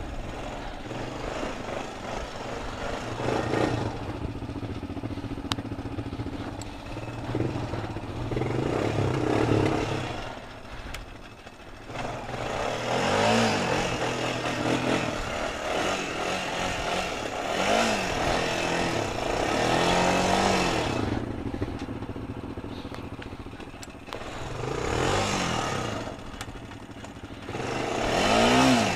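Honda ATV engine running as the quad is ridden through mud. It is fairly steady at first, then revs up and down several times in the second half.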